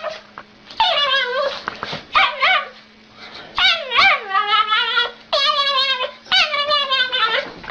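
A dog making a string of whining, yowling calls, about seven in a row, each under a second long with a wavering, sliding pitch.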